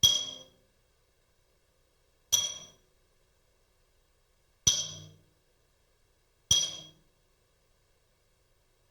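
Four hammer blows on metal, spaced about two seconds apart, each a sharp strike with a short ringing tone that dies away quickly.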